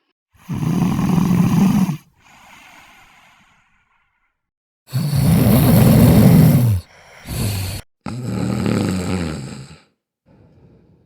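A person snoring in separate loud snores with pauses between them. One long snore comes about half a second in, followed by a quieter breath. After a short silence, three more snores follow one another from about five seconds on, and a faint one comes near the end.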